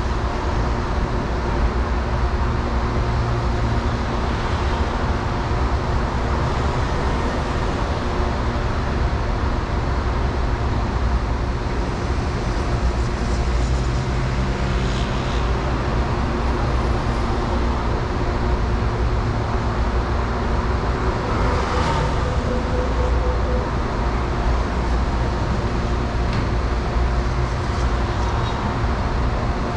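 Steady road-traffic noise with a constant mechanical hum underneath, the level unchanging throughout, and a brief sharper sound about two-thirds of the way through.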